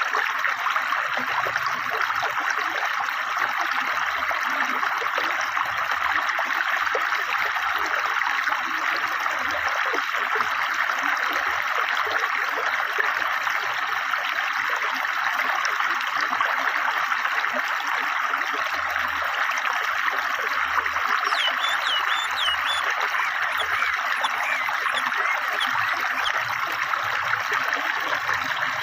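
Fast-flowing river water, a steady rushing and babbling. Short, high bird chirps come in over it about two-thirds of the way through.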